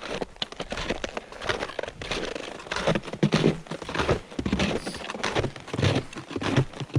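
A hiker's footsteps crunching and scuffing down a mountain trail in an uneven rhythm, with gear and clothing rustling against a chest- or head-mounted action camera.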